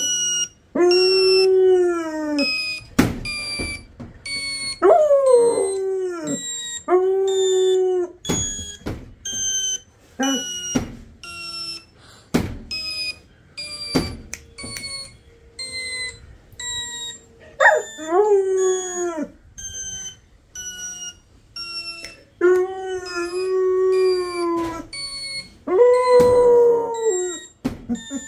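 Labrador howling in long drawn-out howls that rise and then fall in pitch, about six in all with pauses between. Behind the howls runs a steady string of short, high beeping notes stepping up and down in pitch.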